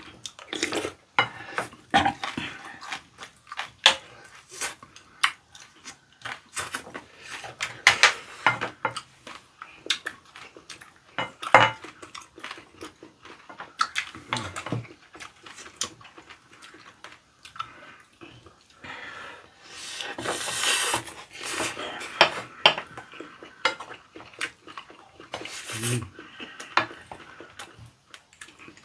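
Wooden spoons and chopsticks tapping and scraping against ceramic bowls as two people eat fried rice, with irregular clicks throughout and a longer noisy stretch about twenty seconds in.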